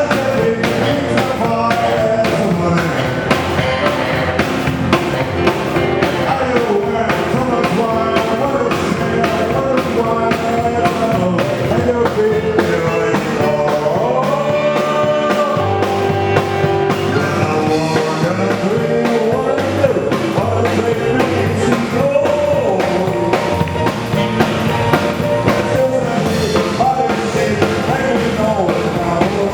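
Live rock-and-roll style band music with drum kit and a singing voice, played loud and steady.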